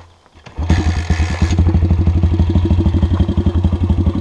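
MRF 140 RC pit bike's single-cylinder four-stroke engine opened up on the throttle about half a second in, then pulling steadily with an even, rapid beat. A burst of hiss comes with it for about a second as it opens up.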